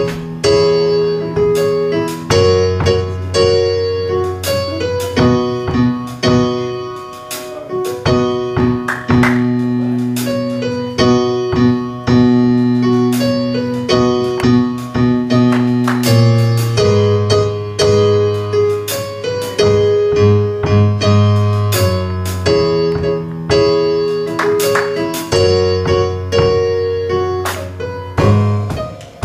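Piano or electric keyboard playing sustained chords over a bass line, an instrumental passage for church worship music.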